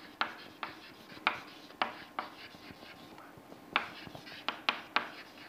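Chalk writing on a blackboard: irregular sharp taps as the chalk strikes the board, with faint scratching between strokes.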